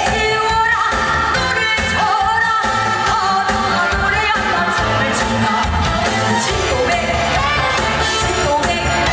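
A woman singing a Korean trot song into a microphone over amplified pop-style accompaniment with a steady beat.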